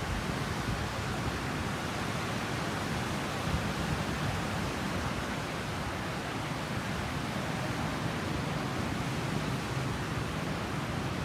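Steady rush of surf breaking and washing up a sandy beach, with low wind noise on the microphone.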